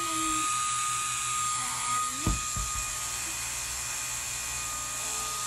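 Small propeller motor of a light-up flying spinner ball toy whirring with a steady high-pitched whine, the toy switched on and spinning. A dull knock comes a little over two seconds in.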